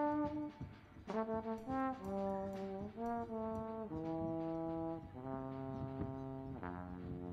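Trombone playing a melody of separate held notes that step up and down, ending the phrase on a long sustained low note near the end.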